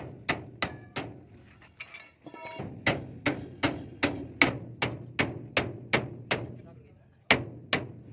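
Hand hammer striking metal in steady, evenly paced blows, about two and a half a second, in runs broken by short pauses.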